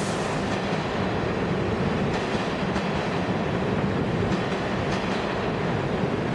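New York City subway train running past an underground station platform: a steady rumble of steel wheels on rail, with a few faint clacks over rail joints.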